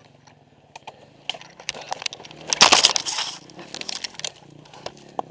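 Brush and twigs crackling and snapping as undergrowth is pushed through, with one loud rustling crash about two and a half seconds in, over a Yamaha dirt bike's engine idling low.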